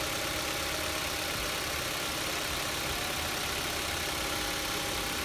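Kia K3 (Cerato/Forte) engine idling steadily, a constant even hum. It is running to circulate plain water through the cooling system as a flush before the water is drained again.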